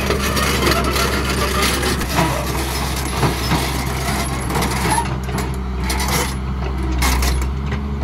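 Diesel engine of an L&T-Komatsu PC200 hydraulic excavator running steadily, with irregular knocks and clatter of steel on rock that thin out about five seconds in.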